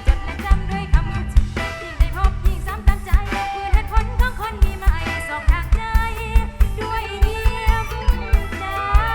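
Live mor lam band music, loud, with a steady fast drum beat under a wavering lead melody.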